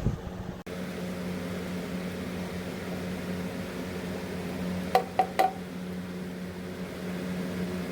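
Forge running with a steady hum. About five seconds in come three quick metallic clinks with a short ring.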